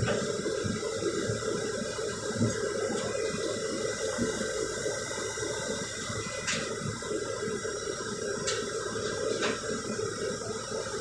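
Excavator diesel engines and hydraulics running steadily with a constant hum, with a few sharp metallic clicks about two-thirds of the way through.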